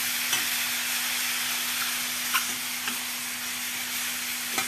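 Boiled beef-skin pieces (krecek) frying in a stainless steel pan with spice paste and sliced chillies, a steady sizzle. A metal spatula stirs them, clicking against the pan a few times.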